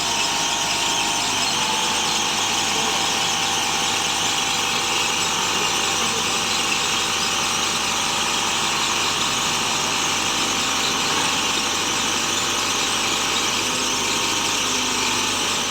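Horizontal directional drilling rig running: a loud, steady high-pitched squealing whine over a dense hiss, with no let-up, stopping abruptly at the very end.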